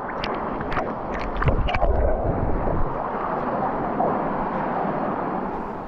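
Steady rush of water, with wind buffeting the microphone in low gusts and a few sharp clicks during the first two seconds.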